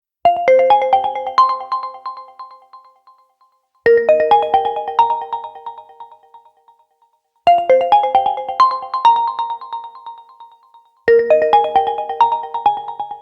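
Realme X ringtone: a short phrase of quick, bright chiming notes that rings out and fades, looping four times about every three and a half seconds.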